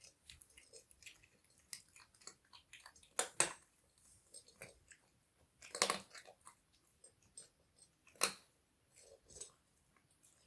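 Kittens chewing dry kibble: a run of small crunches and clicks, with louder crunches about three, six and eight seconds in.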